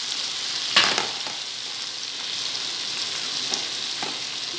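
Sliced mushrooms sizzling in a frying pan with sautéed onion, garlic and tomato, a steady hiss, just after being added. A sharp knock sounds just under a second in, with a couple of faint knocks later.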